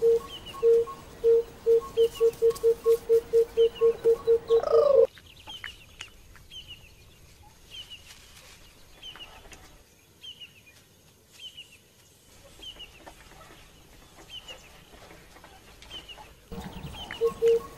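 An animal's series of short, evenly pitched calls, speeding up over about five seconds and stopping abruptly, then starting again near the end. Faint high chirps repeat about every two-thirds of a second throughout, with scattered soft clicks in the quiet stretch between.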